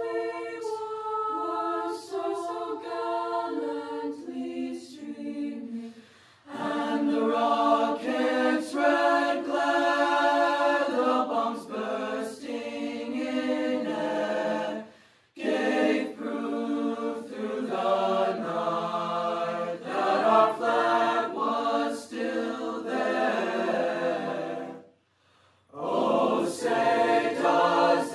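Mixed-voice high school choir singing a cappella in chords, its phrases broken by short pauses about six, fifteen and twenty-five seconds in.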